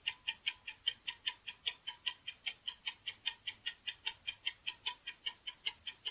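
Fast, even ticking of a countdown-timer sound effect, about five ticks a second.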